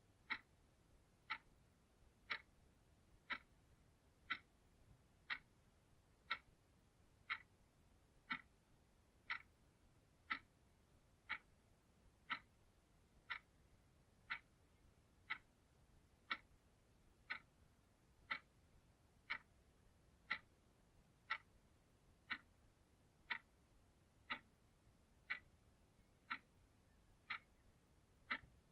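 Clock ticking steadily, one sharp tick a second at an even pace.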